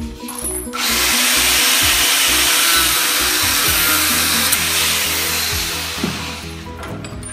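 Angle grinder with a cutting disc slicing through a steel chain link held in a vise: a loud, steady grinding hiss that starts about a second in and dies away near the end as the cut finishes.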